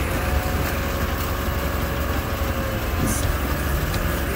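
Argo Conquest 8x8 amphibious ATV's engine running steadily as it drives along, with a steady whine over the low engine sound.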